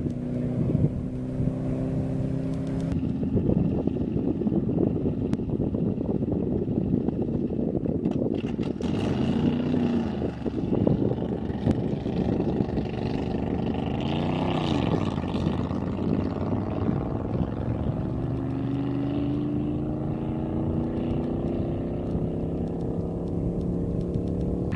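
Engines of land-speed racing vehicles running loudly, with several engine notes overlapping; the pitch dips and climbs as they rev, and one note rises slowly over the last several seconds.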